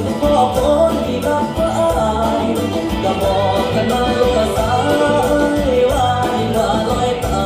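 A song with singing and a steady beat, played over stage loudspeakers.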